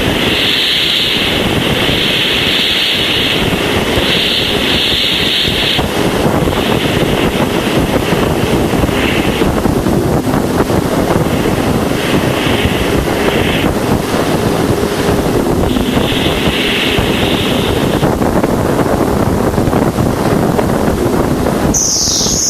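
Voyager 1 Plasma Wave Subsystem recording of plasma waves in Jupiter's magnetosphere, played back as audio. It is a steady, loud hiss like wind or surf with a faint constant tone. A higher band of hiss switches on and off every second or two, and a higher, wavering band comes in near the end.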